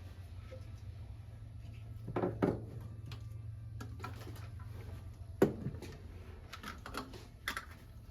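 Scattered knocks and clanks of hands and tools working on the car's exhaust parts: two close together about two seconds in and the sharpest one about five and a half seconds in, over a steady low hum.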